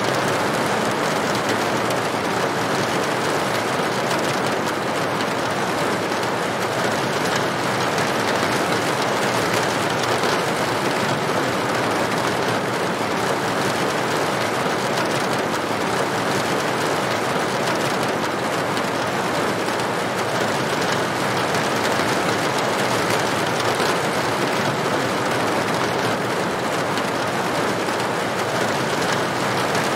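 Steady rain falling on a tin roof: a dense, even patter with no breaks.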